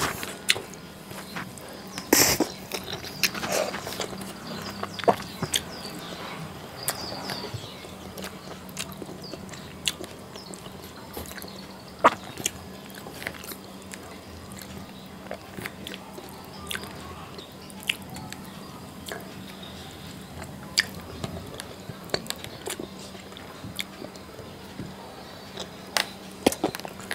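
A person eating rice and fish curry with the fingers from a metal plate: scattered small clicks and smacks of mixing the rice, chewing and lip sounds. A low steady hum runs underneath.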